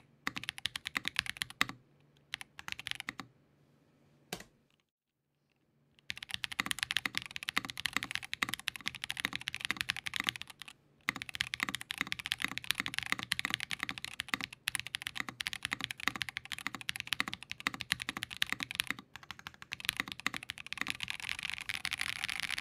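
Fast touch-typing on a KBDFans Tofu60 2.0 60% mechanical keyboard in gasket mount with Built by Nim switches: a rapid, dense stream of key clacks with a slightly hollow sound. The typing stops for a few seconds about two seconds in, with one lone keystroke in the pause, then resumes and runs on steadily.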